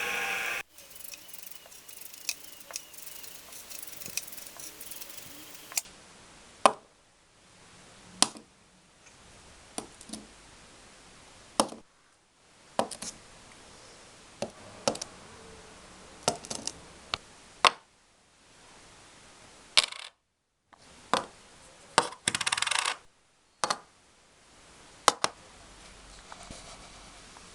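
Metal engine parts and tools being handled on a workbench: a string of separate sharp metallic clinks and knocks, with a short rattle a little after the middle.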